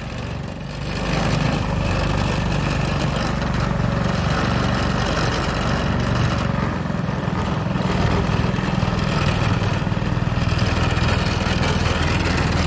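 Mud motor's small gas engine pushing a jon boat, running steadily under throttle; it picks up about a second in and then holds an even drone.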